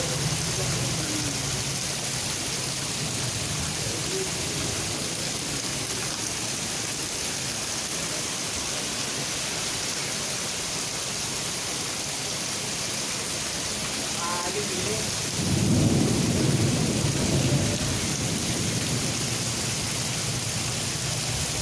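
Steady heavy rain hissing throughout, with a roll of thunder rumbling low for a few seconds about three-quarters of the way through.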